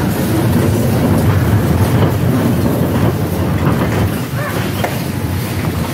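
Bumper car in motion on the ride floor: a steady rumble from its wheels and drive with a low hum, and a few faint clicks near the end.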